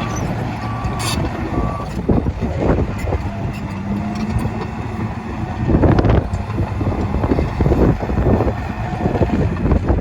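Komatsu D51PX-22 crawler dozer's diesel engine running under load while the tracks clank, with its reverse alarm beeping steadily for about the first two seconds as the machine backs up. There are louder bursts of clatter around six seconds in.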